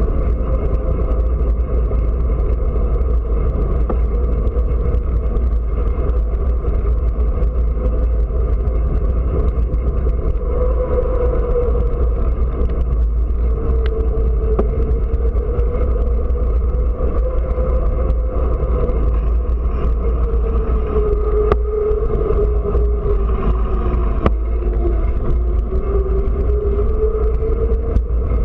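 Wind buffeting on the microphone of a moving bicycle's camera, a heavy low rumble, with road noise from riding through traffic. Under it runs a steady hum that slowly wavers in pitch.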